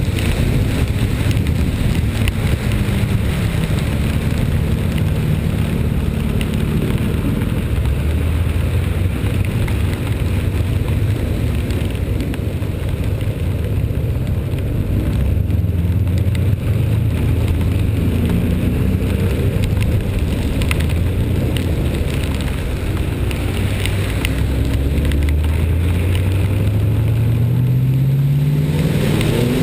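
A vehicle engine running under varying load over a steady hiss, its pitch rising steeply near the end as it accelerates.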